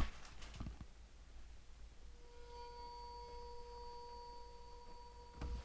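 Faint ring of a hanging metal wind bell (pungyeong): one clear, steady metallic tone that sets in about two seconds in and rings on, slowly fading.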